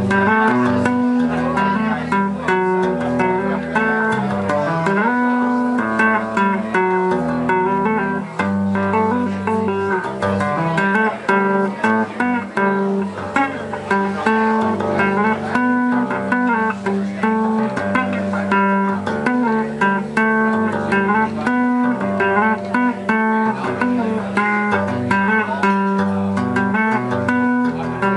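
Multi-string electric bass played solo with two-handed tapping: a low repeating bass line under chords and melody notes higher up.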